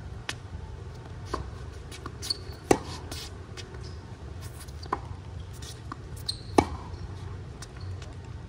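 Tennis rally on a hard court: sharp pops of racket strings hitting the ball and the ball bouncing, the two loudest a little under four seconds apart, among fainter, more distant hits, over a steady low rumble.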